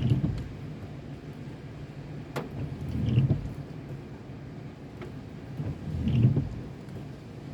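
Car driving in the rain, heard from inside, with windshield wipers sweeping about every three seconds, each sweep a low swell, and scattered taps of raindrops.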